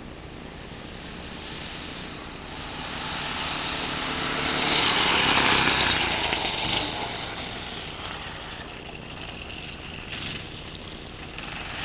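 Manco Critter go-kart's 5 hp single-cylinder engine running as the kart drives past, growing louder to a peak about halfway through, then fading as it moves away.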